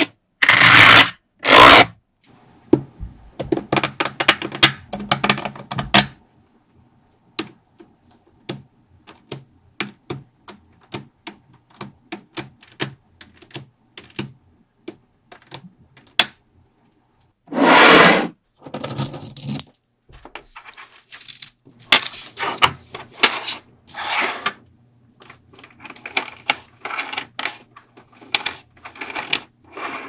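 Small metal magnetic balls clicking as they snap together and apart under the fingers, an irregular patter of sharp clicks. Several louder rattling, scraping bursts come as rows and layers of balls are peeled off and slid across each other, twice near the start, again a little past halfway, and several times near the end.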